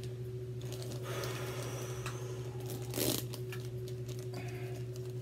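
Clear plastic packaging crinkling and rustling as it is handled and opened by hand, with one sharper crackle about three seconds in, over a steady low hum.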